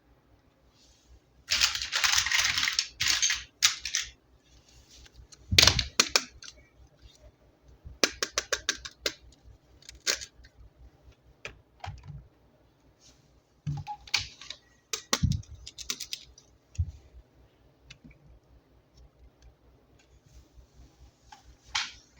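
Unboxing handling sounds of toys and their packaging: a rustle about two seconds in, a single knock, then scattered clusters of sharp clicks and taps.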